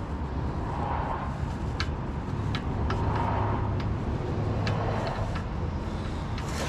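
Scattered light metallic clicks from a thread die being worked onto the axle's spindle-nut threads, heard over a steady low rumble.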